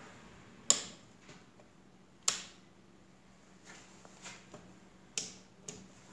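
Four sharp clicks or knocks at uneven intervals, the first two the loudest, with a few fainter ticks between them, over a faint low hum.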